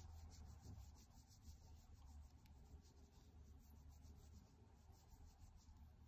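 Near silence with faint, soft rubbing and rustling, repeated a few times a second: fingers stroking a small animal's fur.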